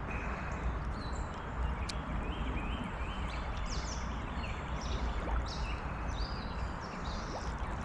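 Creek water running steadily, with birds chirping over it again and again in short high notes, and a low rumble underneath.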